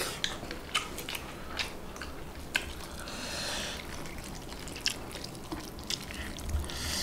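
Eating sounds: chewing, and fingers mashing chicken chaap into biryani rice on a plate, with scattered small clicks and squishes.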